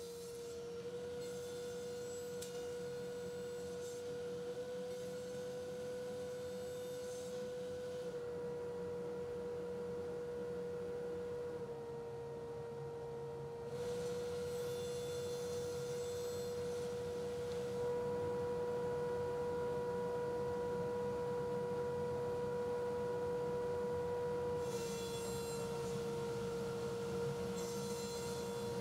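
A steady hum made of one held tone whose pitch steps slightly up or down every few seconds, with no cutting noise or knocks over it.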